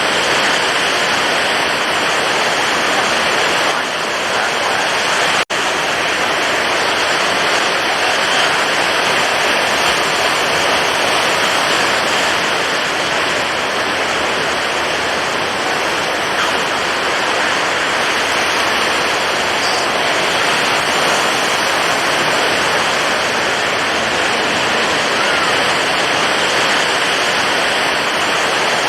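Stormy ocean surf: a loud, steady roar of high waves breaking, cut out for an instant about five seconds in.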